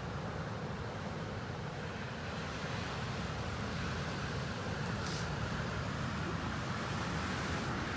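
Steady outdoor background noise: a continuous low rumble with a broad hiss over it, growing slightly louder partway through, with no distinct calls or knocks standing out.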